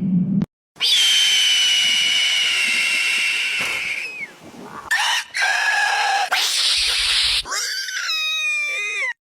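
A run of screeching raptor calls, the eagle sounds of the soundtrack, joined with abrupt cuts. A long high scream of about three seconds that sags slightly at the end, then shorter calls, a harsh hissing screech, and a final call that steps down in pitch.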